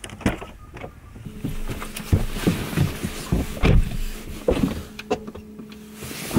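Clicks and knocks of a driver settling in a sports car's cabin, with a steady low electric hum that sets in about a second in.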